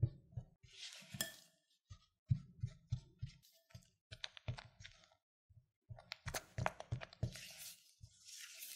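Spatula mixing powdered sugar into softened butter in a glass bowl: irregular soft taps and knocks against the glass, with short scraping swishes about a second in and near the end.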